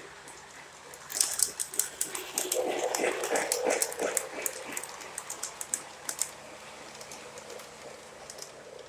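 O gauge model train running, with a rapid, irregular run of sharp clicks for about five seconds starting about a second in, fitting metal wheels crossing track joints or a switch, then a steady low running sound.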